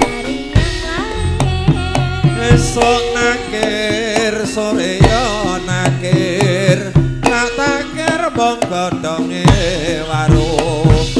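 Javanese gamelan music played live: hand-drum (kendang) strokes over sustained pitched tones, with a woman singing in a wavering, ornamented voice.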